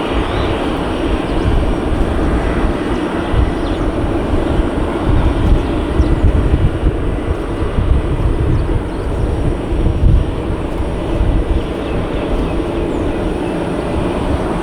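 Airbus A320 jet engines running, a loud steady rumble with a deep low end that swells and eases unevenly.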